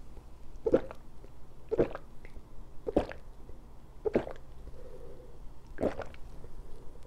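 A person gulping down a glass of beer without stopping: five loud swallows, about a second apart.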